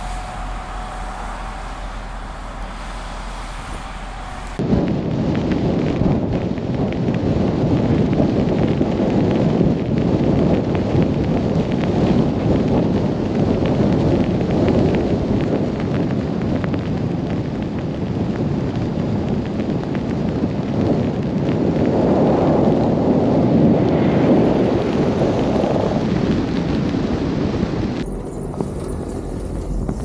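Strong blizzard wind buffeting the microphone, a dense rumble that starts abruptly a few seconds in and swells and eases in gusts.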